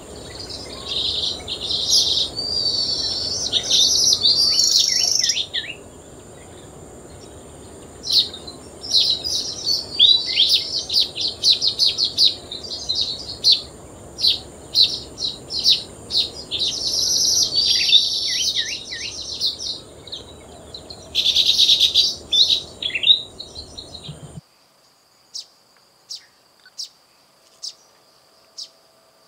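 Weaver birds chattering at the nest in repeated bursts of rapid high notes, a second or two each, over a steady high-pitched insect drone. About 24 seconds in, the sound cuts off abruptly to a much quieter background with a few faint sharp ticks.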